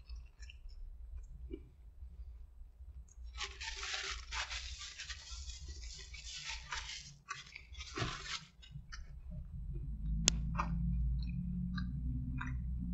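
Close-up chewing of a bite of burger with onion rings and beetroot: scattered wet crunches and mouth clicks. Around the middle comes a stretch of paper napkin rustling against the mouth.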